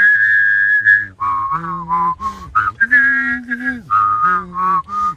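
A person whistling a slow melody with the voice sounding along underneath at the same time, the notes held and changing every half second to a second.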